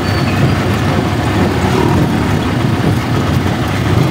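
Auto-rickshaw's small engine running steadily as it drives along a street, mixed with road and wind noise, heard from inside the open passenger cab.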